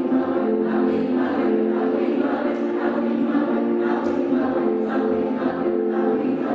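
Children's choir singing in held notes that change every second or so.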